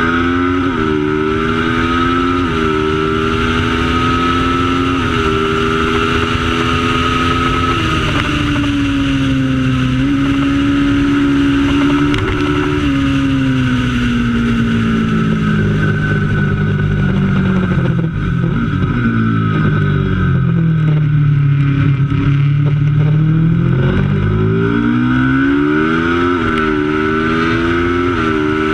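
Racing motorcycle engine under hard acceleration, its note climbing in steps with a brief dip at each upshift. About halfway through it falls away steadily as the bike brakes and changes down, stays low for a few seconds, then pulls up through the gears again near the end.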